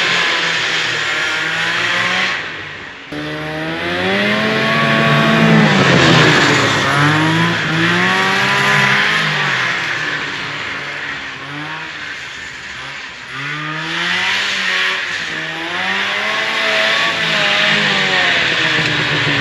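Fan-cooled 340 two-stroke engine of a 1974 Arctic Cat Lynx snowmobile running, its pitch rising and falling repeatedly as the throttle is opened and closed. The sound drops away briefly and cuts back in about three seconds in.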